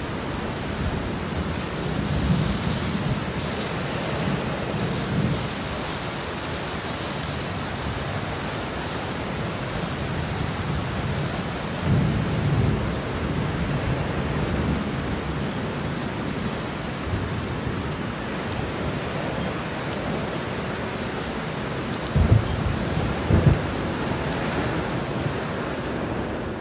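A truck fire burning: a steady rushing noise, with low swells and two short low thuds near the end.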